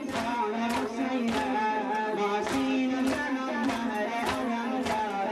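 Solo voice singing a melodic Muharram mourning chant (noha), with held notes, over a steady beat of a little under two strokes a second.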